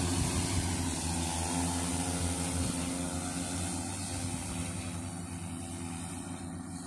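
Multi-rotor agricultural spray drone flying, its propellers giving a steady hum with a layered pitch that slowly fades as it moves away.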